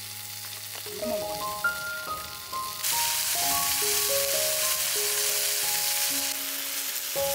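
Glazed skewers sizzling in a pan over a wood fire, the hiss growing louder about three seconds in, with a melody of background music playing over it from about a second in.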